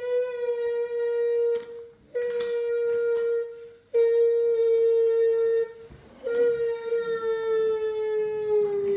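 A child's voice holding a steady, hooting tone, his own made-up train sound, four times over, each held for one and a half to three seconds with short breaks between. The last one is the longest and sags slightly in pitch at the end.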